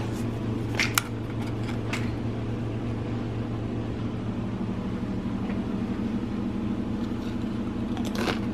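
A steady low mechanical hum, with a few sharp clicks about one and two seconds in.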